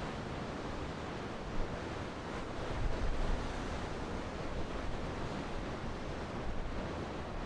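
Rough sea surf breaking and churning, with gusts of wind buffeting the microphone, strongest about three seconds in.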